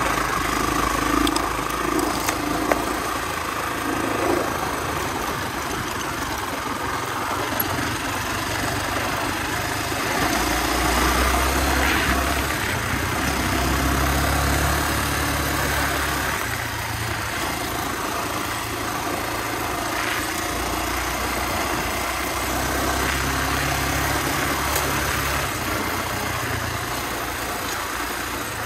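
Honda XR250R's single-cylinder four-stroke engine running as the bike is ridden along a dirt track. Its note rises and falls with the throttle, louder about midway and again near the end, over a steady rush of wind on the microphone.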